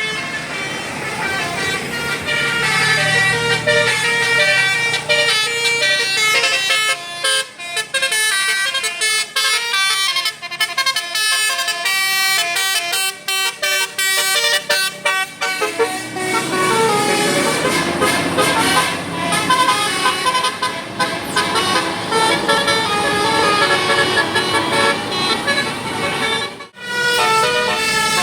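Telolet musical bus horn playing a quick melody of short stepped notes, with a brief break near the end.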